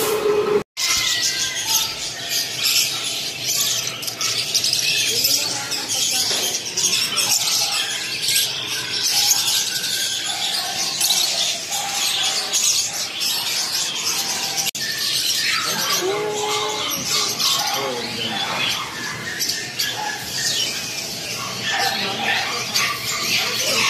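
Many small caged pet birds chirping at once, a dense, steady chorus of rapid high calls, with voices underneath.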